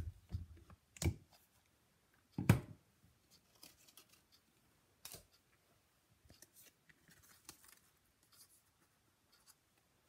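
Stampin' Up Story Label paper punch pressed through cardstock and released: a few sharp knocks in the first three seconds, the loudest about two and a half seconds in, then soft paper rustling as the punched label is handled.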